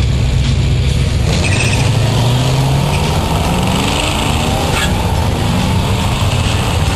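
Car engine running loud and steady, its pitch climbing slightly over the first few seconds, with a short sharp click about five seconds in.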